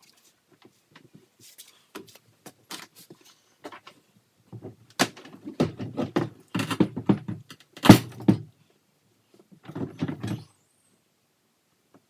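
Clunks, knocks and thuds of a Sea-Doo engine being pulled and rocked against its mounts and hull while it stays stuck. A few light clicks come first, then two bouts of knocking, with one sharp bang about eight seconds in.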